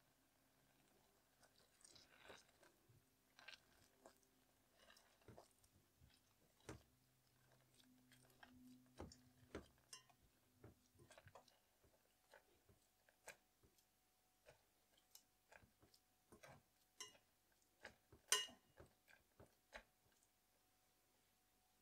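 A wire potato masher mashes cooked blueberries in a metal saucepan, making soft squelches and scattered light clicks of metal on metal. A sharper knock comes late on.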